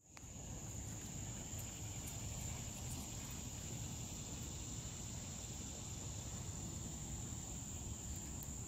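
Insects droning in one steady high-pitched whine, with a low rumble underneath.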